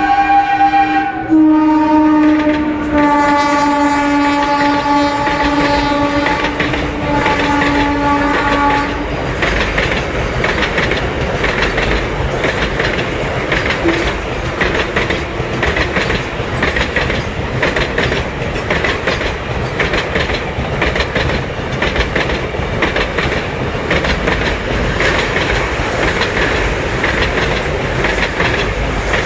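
A WAG-7 electric locomotive's horn blows one long note for about nine seconds, dropping in pitch twice in the first few seconds as the train passes. It then gives way to the clickety-clack and rumble of a container goods train's wagons rolling past at speed.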